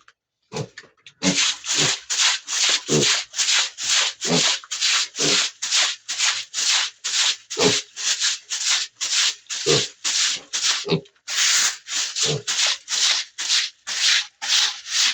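A pig chewing food noisily: a rapid run of wet, crunching chomps, about two or three a second, with an occasional low thud.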